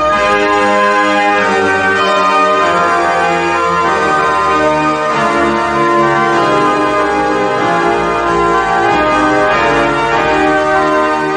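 Organ music: slow, held chords changing one after another.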